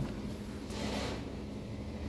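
Touch-free automatic car wash running, heard from inside the car's cabin: a steady hum under a hiss of water or air against the body. The hiss swells briefly about a second in.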